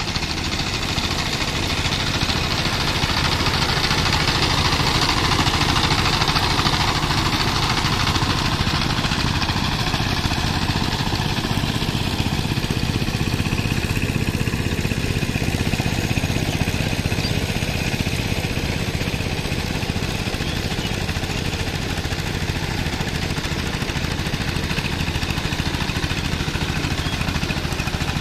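Two-wheel power tiller's single-cylinder diesel engine running steadily with a fast, even chugging as the tiller drives through a muddy paddy field.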